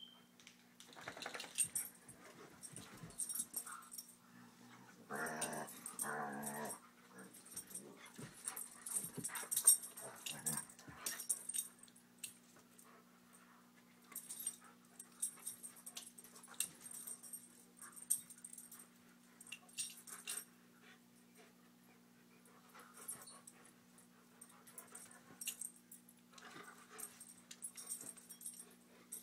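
Two wolfdogs play-fighting: intermittent growling and scuffling, with a longer stretch of growling about five to seven seconds in.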